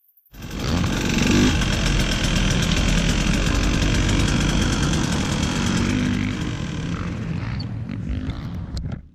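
2017 KTM 150 XC-W two-stroke dirt bike engine running at a steady idle, heard close up from the rider's seat. It starts abruptly just after the beginning and cuts off suddenly near the end.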